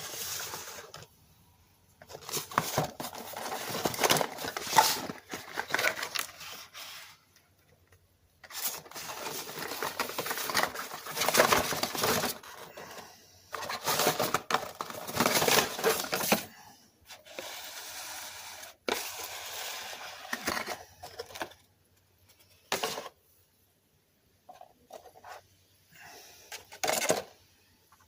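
Packaging of a gaming mouse being handled and opened: irregular bursts of rustling, crinkling and scraping, with a few sharp clicks and knocks in between.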